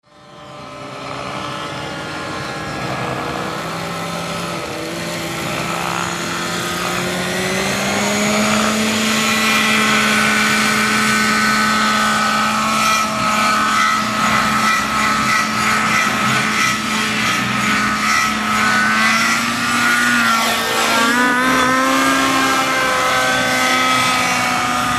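Raptor 90 radio-controlled helicopter's two-stroke glow engine and rotor spooling up, the pitch rising steadily over the first several seconds. It then runs at high, steady head speed with wavering revs as it flies, including a brief dip and rise near the end.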